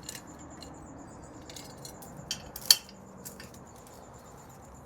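A few scattered light metallic clinks of the removed, rusty and stretched stock motorcycle drive chain being handled, the sharpest about two and a half seconds in.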